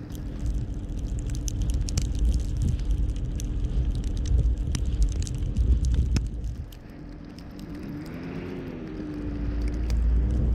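Car driving on a snowy city street: a steady low rumble of road and engine noise with scattered clicks and ticks. Near the end a wavering tone rises and falls for a couple of seconds.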